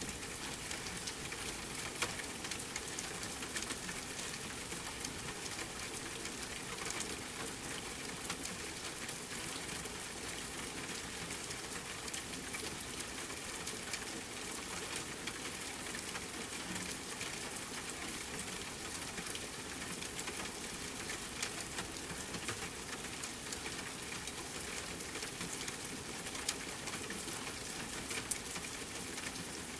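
Steady rain falling, mixed with a fireplace crackling; a few sharper pops stand out, one about two seconds in and several near the end.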